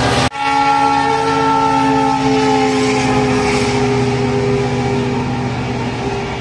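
Brief rush of a passing train, then, after an abrupt cut, an electric locomotive's air horn sounding one long blast whose pitch slowly falls as the train moves off.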